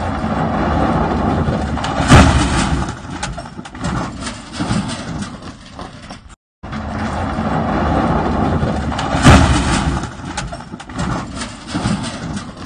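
Pickup trucks driving over desert ground: engine and tyre noise mixed with a rough rumble, with a sharp loud crack about two seconds in and again about seven seconds later. The sound cuts out briefly a little after halfway.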